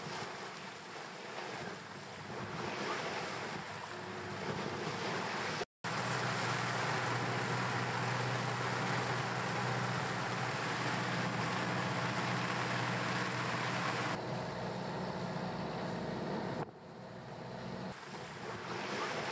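Wind and waves, with wind buffeting the microphone, in a few separate cuts that change abruptly, including a brief dropout to silence about six seconds in.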